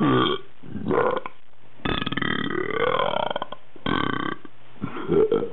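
A person burping repeatedly: about five belches in a row, mostly short, with one long drawn-out belch of nearly two seconds near the middle whose pitch rises.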